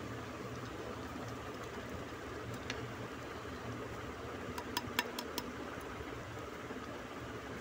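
Duck curry simmering in a large pot: a steady hiss of bubbling, with a few sharp ticks around the middle.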